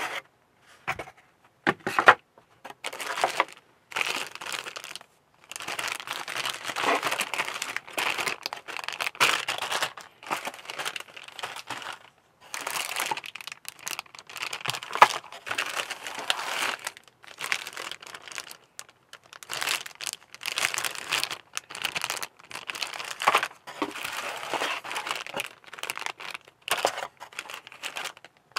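Clear plastic bags crinkling and rustling in irregular bursts as plastic model-kit parts (sprues and a display stand) are handled and lifted out of a cardboard box, with cardboard shifting and a few sharp clicks and knocks.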